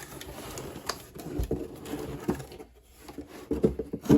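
Cardboard box being opened and its packaging handled: irregular rustles and knocks, with a few louder knocks near the middle and end.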